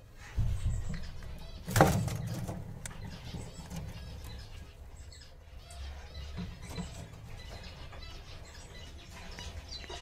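Caged small parrots chirping faintly, with low rumbling handling noise near the start and a brief loud clatter just under two seconds in.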